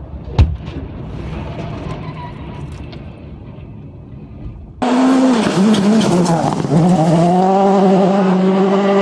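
A loaded log trailer overturning onto the road: one loud crash about half a second in, then a low rumble of road and truck noise. About five seconds in it gives way to a rally car's engine revving hard, its pitch dipping and wavering, then held steady at high revs.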